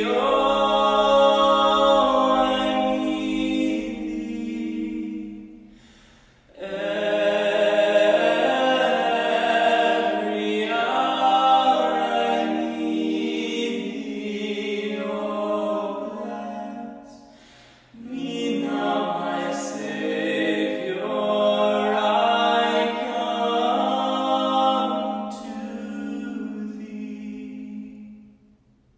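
Three voices, two men and a woman, singing a cappella in close harmony with long held chords. They sing in three phrases with two short breaks, and the last chord fades out near the end.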